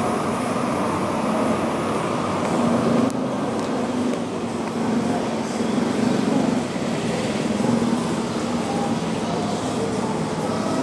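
Steady road traffic noise, vehicles running with a low engine hum that swells and fades a few times.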